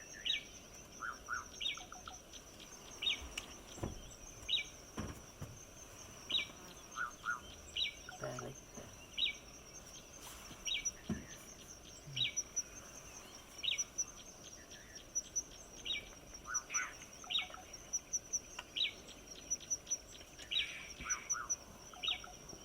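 Birds calling over a steady, fast-pulsing high insect trill. One bird repeats a short high call about every second and a half, with occasional lower double notes between.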